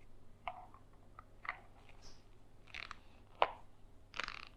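Lamp-holder fitting handled and twisted by hand: about half a dozen irregular short clicks and scrapes of plastic and metal parts, the sharpest one about three and a half seconds in, as the oven-softened glue holding the plastic centre is worked loose.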